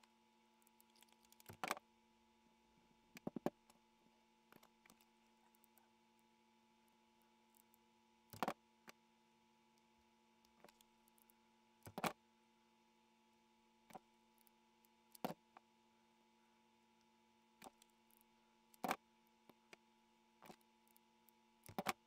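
Faint steady electrical hum, with scattered sharp clicks and taps as small plastic craft pieces are handled on a table, about one every few seconds.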